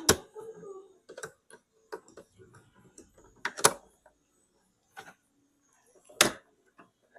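Scattered sharp clicks and knocks of hard objects being handled on a workbench, with the loudest knocks about three and a half and six seconds in.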